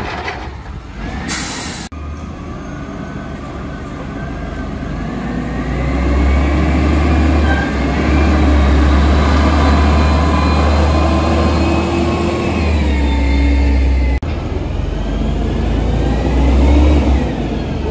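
Scorpion Mantis front-loader garbage truck driving and pulling away: a heavy engine rumble that grows louder, with a faint whine that rises and falls in pitch as it goes through the gears.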